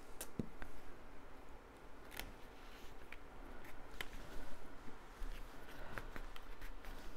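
Cardstock pieces being handled, slid and pressed flat on a table by hand, with a few scattered light clicks and taps.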